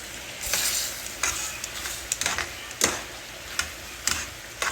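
French fries frying in hot oil, with a steady sizzle, as the fries turn a little brown near the end of cooking. A utensil knocks and scrapes against the pan about seven times, loudest nearly three seconds in.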